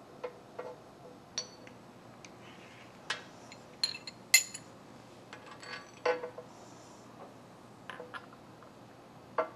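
Steel clamping hardware clinking and clanking against a milling machine's cast-iron table as a strap clamp is set into the T-slots: scattered sharp metallic clinks with a short ring, the loudest about four and a half seconds in.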